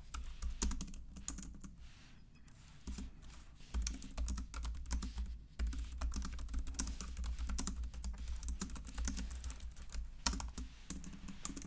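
Fast typing on a compact low-profile keyboard with round keycaps: a quick patter of key clicks in runs, with short pauses between them.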